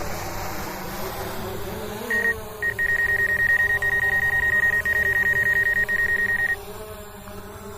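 Mavic Air 2 drone's propellers buzzing as it hovers close by. About two seconds in, a rapid run of high electronic beeps at one steady pitch starts and goes on for about four seconds, then stops.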